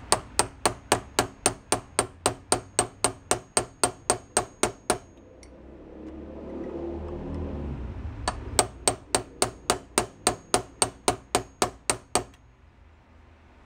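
Hammer tapping quickly on a small drift punch to drive out the pin that holds the starter gear onto the shaft of a lawn-tractor electric starter, steel on steel with a faint ring, about four or five blows a second. The tapping runs for about five seconds, stops for about three while a low rumble rises and fades, then resumes for about four seconds.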